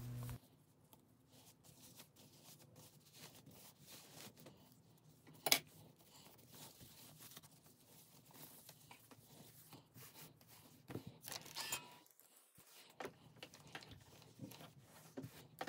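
Faint rustling and handling of satin fabric as a sewn tube is worked right side out, with scattered small clicks and one sharper click about five and a half seconds in.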